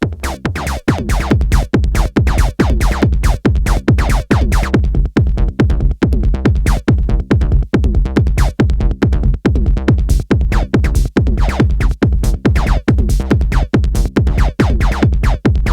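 Techno-style electronic music played live on hardware synthesizers and a drum machine: a steady kick beat about twice a second over a continuous bass line.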